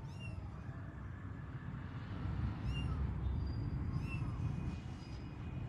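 Kitten mewing: three short, high-pitched mews, the first right at the start, then two more a few seconds later and about a second and a half apart, over a steady low rumble.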